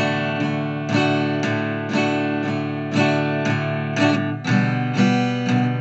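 Acoustic guitar playing an instrumental passage between sung lines, chords struck about twice a second and left to ring.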